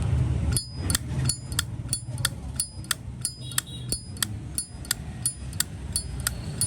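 Zippo lighter lid flicked open and snapped shut over and over: a run of crisp metallic clicks, about three a second, each with a brief high ring, starting about half a second in.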